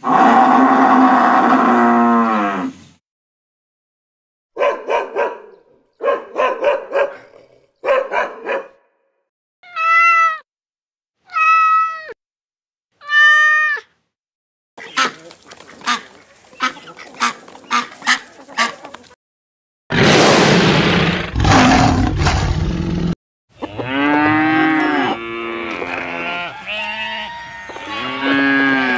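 A string of animal sound effects one after another with short gaps. A cow moos with falling pitch, a few clusters of short calls follow, then a cat meows three times and a stretch of rapid clicking calls plays. After a loud harsh burst, quavering bleating runs on to the end.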